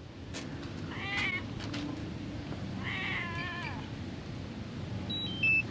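A tabby cat meowing twice: a short meow about a second in, then a longer one around three seconds that falls in pitch. The cat does not sound well.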